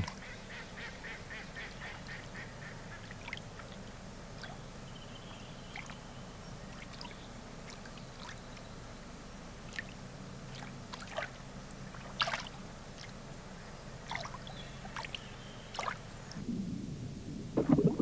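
Waterside ambience: short, harsh water-bird calls, scattered every second or two over a steady low hum, with the loudest call about twelve seconds in.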